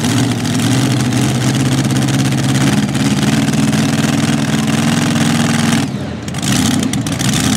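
Mini rod pulling tractor's engine idling loud and steady on the line, with a brief dip about six seconds in before it picks up again.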